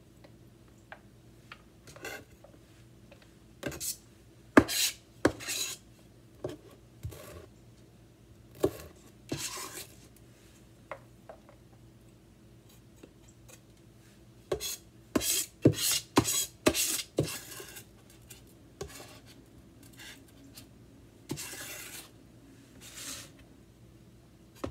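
Kitchen knife scraping and rubbing in short, irregular strokes as chopped red onion is scraped off a plastic cutting board and wiped from the blade, with a quick run of strokes about two-thirds of the way through.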